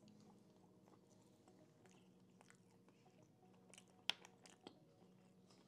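Close-up chewing of a bite of fried chicken dunked in gravy, faint and wet, with two sharp crunches about four seconds in.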